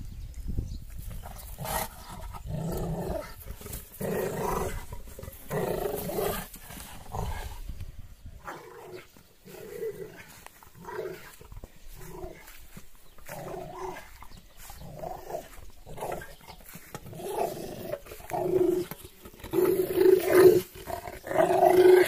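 American bulldog growling in short, repeated bursts while biting and tugging at a rubber car tyre, louder near the end.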